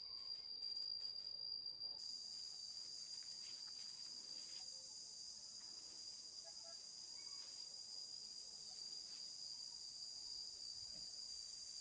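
Crickets trilling steadily in one continuous high tone, with a higher hiss joining about two seconds in.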